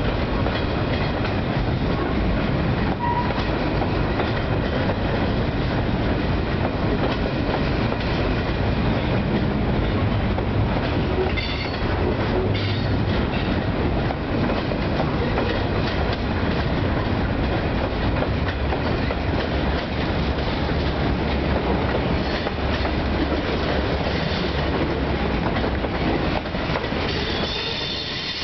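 A CSX freight train's cars rolling past, first gondolas and then tank cars: a steady rumble of wheels on the rails with a clickety-clack over the rail joints.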